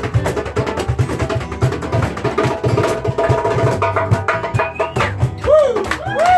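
Live band music: a steady beat of hand-played percussion with sustained pitched notes over it. Near the end a few notes swoop up and down in pitch.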